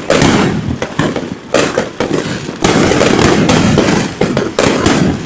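Fireworks going off in a rapid series of sharp bangs, about half a dozen loud ones with crackling between them.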